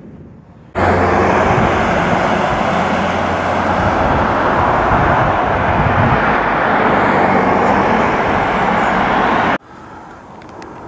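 Steady road traffic noise, loud and even, cutting in suddenly about a second in and cutting off suddenly near the end.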